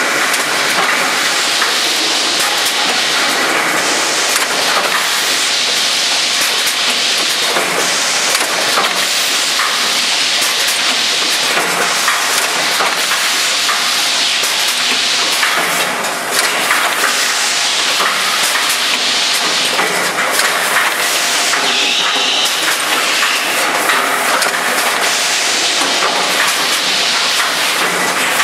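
Four-lane shot glass filling machine running: a loud, steady hissing noise from its mechanism, with continual fine clatter.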